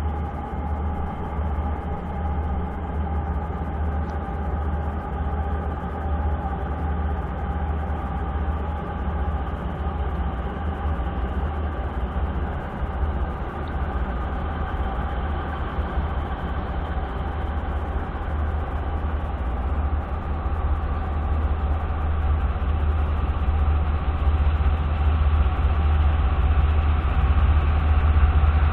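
BNSF diesel freight locomotives running with a steady deep engine rumble and a faint steady whine above it, growing gradually louder over the last several seconds.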